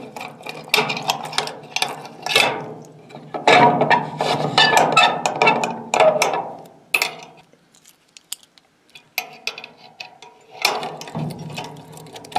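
Bunch of keys jangling and clicking against a brass padlock as it is unlocked and unhooked from a steel sliding door bolt, with metal rattling and scraping.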